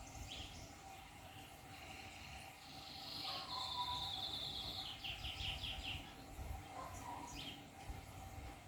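Birds chirping outdoors, with a fast trilling call from about three to six seconds in and short falling chirps near the start and end. A faint steady tone runs underneath.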